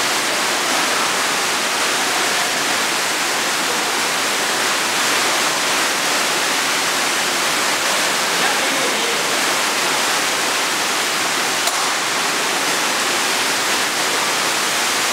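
Water rushing steadily out of the ends of indoor pool water slides and splashing into the pool, a constant even rush.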